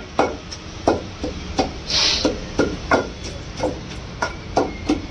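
Long wooden pestle pounding green chillies and tamarind in a stone mortar for a pickle: a run of dull thuds, about two to three a second, with a brief hiss about two seconds in.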